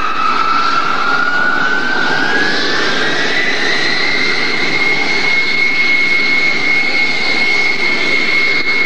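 Jet airliner's engines running loudly, their whine rising in pitch over the first few seconds, then holding steady.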